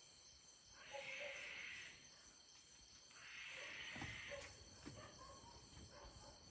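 Unidentified wild animal calling faintly from the woods: a harsh, hissing screech about a second long, repeating roughly every three seconds. It sounds somewhat like a cat, at times like a pig.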